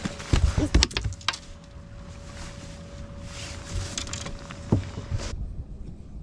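Knocks and thumps of an angler handling a fish and moving on a bass boat's deck, with a thin steady whine underneath that cuts off suddenly about five seconds in.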